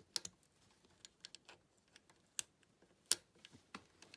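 Scattered light clicks and taps of hands handling the parts of an industrial sewing machine, with two sharper clicks around the middle.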